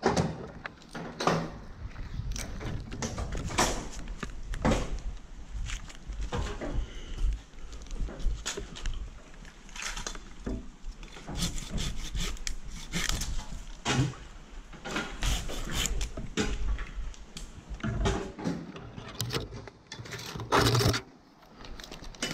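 Tree climber working up a eucalyptus trunk: irregular knocks and scrapes of boots, gloves and gear against the bark, with climbing hardware jangling, over a low rumble on the helmet microphone.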